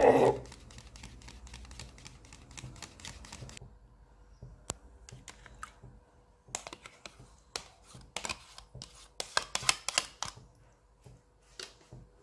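Spoon clicking and scraping against a bowl as thick yogurt is stirred. There is a loud knock at the start, then a quick run of light clicks for about three and a half seconds, then scattered clusters of clicks as the yogurt goes into the pot of milk.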